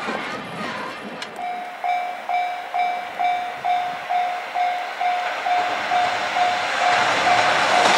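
Japanese level-crossing warning bell starts up about a second in and rings a steady single-pitched ding a little over twice a second, the crossing's signal that a train is coming. Near the end the rumble of an approaching freight train grows louder under it.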